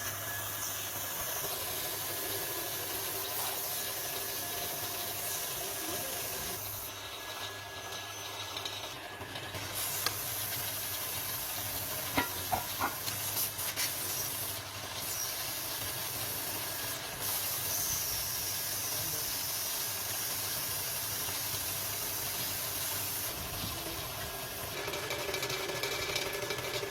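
Steady hiss of factory machinery running in a machine shop, with a few sharp clicks and knocks about halfway through.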